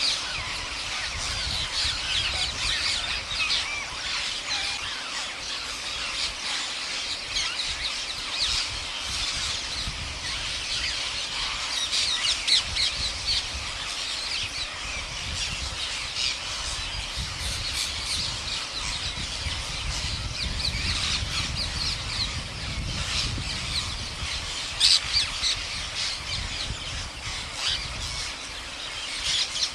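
A large flock of rose-ringed parakeets screeching constantly, many overlapping sharp calls with a few louder bursts. A low rumble runs underneath for part of the time.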